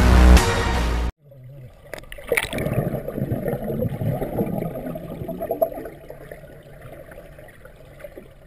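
Loud music cuts off abruptly about a second in. Water gurgling and sloshing follows, with a couple of sharp clicks shortly after, then fades away.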